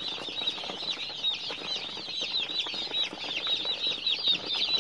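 A crowd of day-old broiler chicks peeping nonstop, many short high falling chirps overlapping into one continuous chorus.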